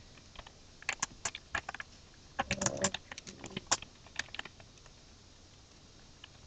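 Computer keyboard keystrokes typing a short word in irregular quick runs of clicks, which stop about two-thirds of the way through.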